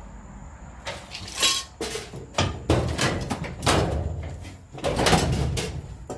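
Sheet-metal parts of a front-load dryer clanking and rattling as a loosened part is worked free by hand: a string of knocks and scrapes, the loudest about five seconds in.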